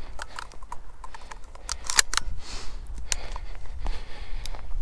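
Footsteps crunching over dry desert ground and brittle brush, an irregular run of sharp crackles and scrapes, the loudest about two seconds in.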